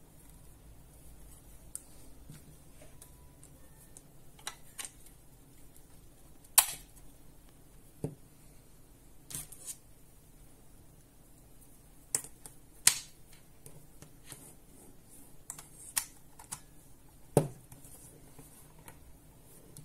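Handling noise from a plastic USB wall charger and a USB cable being picked up, turned over and laid down on a mat: scattered light clicks and taps, with a handful of sharper clicks standing out.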